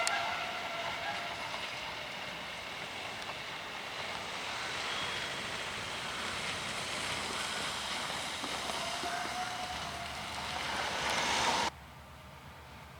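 Locomotive-hauled passenger train moving along the tracks: a steady rumble and hiss from the train and its coaches, swelling near the end and then cutting off suddenly.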